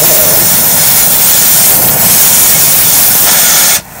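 Oxygen-propane torch flame hissing loudly and steadily into a clay crucible as it melts gold and silver under flux, then stopping abruptly near the end.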